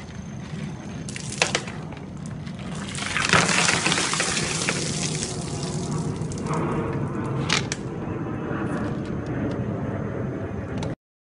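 Ice water poured from a plastic tub over a man's head, splashing onto him and the ground. A sharp knock comes first, and the pour sets in about three seconds in. Another knock comes near the end, and the sound cuts off suddenly.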